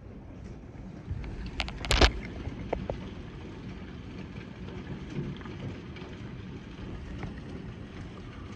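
Quarter-size hail and rain falling: a steady rushing hiss with scattered sharp knocks of hailstones striking, the loudest cluster of knocks about two seconds in.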